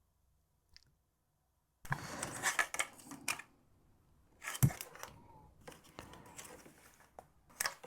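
Scattered small clicks and rustling from handling test probes and a circuit board on a workbench, with one sharper click about halfway through.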